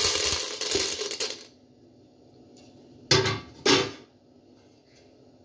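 Dried popcorn kernels poured into a metal pan, a dense rattle of hard kernels on metal that stops about a second and a half in. A little later come two short clatters, a little over half a second apart.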